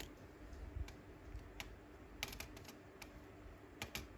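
Faint, scattered clicks and taps of a small plastic paint bottle being picked up and handled, over a low steady hum.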